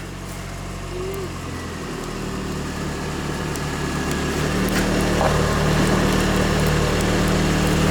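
Car engine idling after a cold start, left running to warm up and defrost an iced-over car. The steady hum shifts in pitch about two seconds in and again a little past halfway, growing slightly louder.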